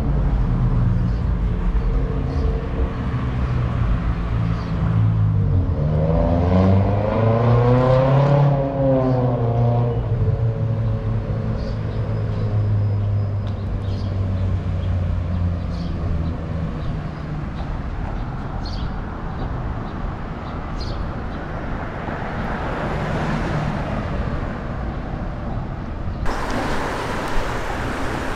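Street traffic: a vehicle's engine running steadily, with one vehicle passing close about a quarter of the way in, its engine pitch rising and then falling, followed by a steady hiss of passing traffic.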